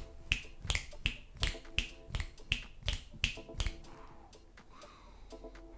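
Fingers snapping with both hands in a steady rhythm, about three snaps a second, stopping a little over three and a half seconds in.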